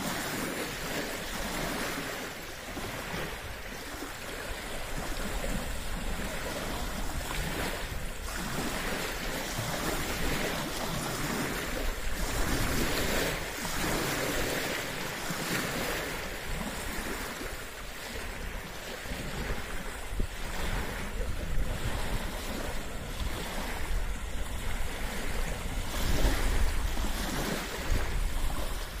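Small waves lapping and breaking on a rocky, stony shore, with wind blowing across the microphone. The wind rumble grows stronger near the end.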